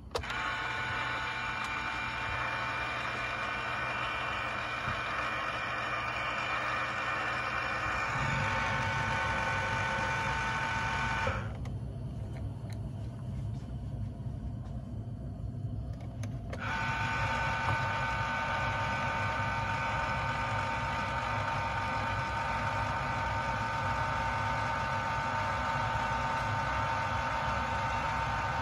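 Radio Shack 15-1245 antenna rotator's motor running as it turns the mast mount, a steady electric hum with a whine over it. The whine drops out for about five seconds around eleven seconds in and then returns.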